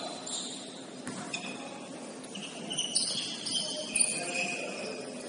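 Basketball shoes squeaking on a hardwood court, many short high squeaks in quick succession, with a few sharp knocks, the loudest about three and four seconds in.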